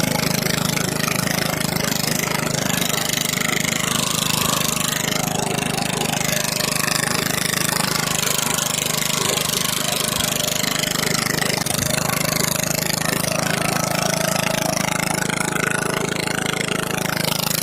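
Lawn mower engine with a new muffler fitted, running at a steady speed.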